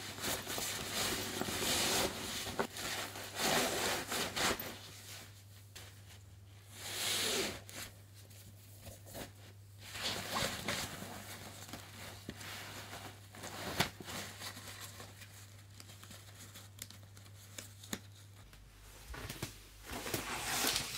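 Nylon backpack fabric and stuff sacks rustling and crinkling in irregular swishes as gear is packed into the pack by hand. A faint steady low hum lies underneath and stops near the end.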